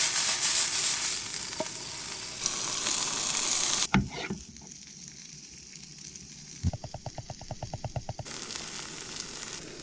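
Asparagus sizzling in a frying pan, a steady hiss that cuts off sharply about four seconds in with a knock. A few seconds later comes a quick run of clicks from a pepper grinder being twisted.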